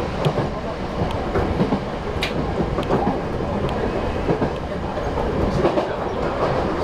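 Sangi Railway 751 series electric train running, heard from inside the driver's cab: a steady rumble of wheels on the track with scattered sharp clicks.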